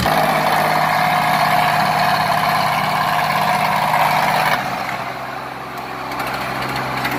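Sonalika tractors' diesel engines running hard under load during a tractor tug-of-war. About four and a half seconds in, the sound eases off and gets quieter.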